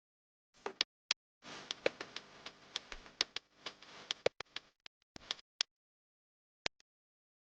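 Sharp metallic clicks and knocks, with a few seconds of dense rattling and scraping after about a second and a half, as tools and metal parts of a turbocharger are handled during an overhaul.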